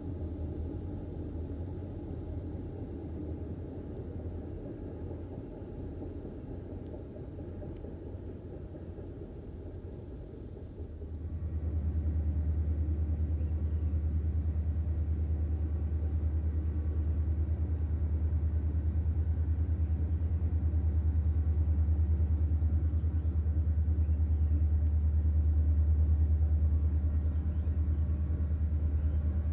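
Insects buzzing, high and steady, over a low rumble. About eleven seconds in, the sound switches to the loud, steady low rumble of a diesel freight train's locomotives running, which drowns out the insects.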